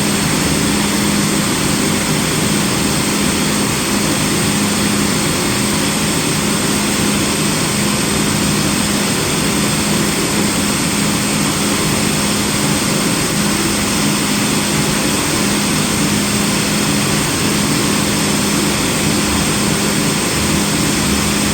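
CNC film cutter running through a cutting job on snowboard base sheet: a steady mechanical whir with a constant low hum, cutting at a low speed.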